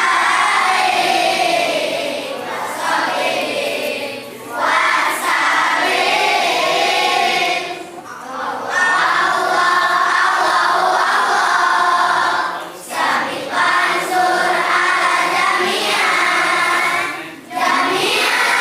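Many voices singing together in long phrases, with brief breaks between them.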